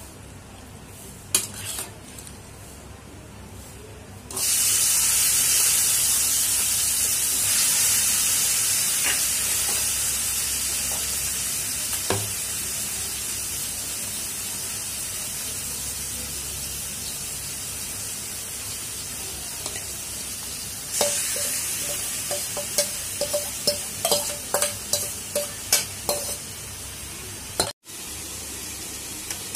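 Marinated mutton and sliced onions going into hot mustard oil in a metal kadai: a loud sizzle starts suddenly about four seconds in and slowly dies down. Near the end a metal utensil stirs the meat, clicking and knocking against the pan many times.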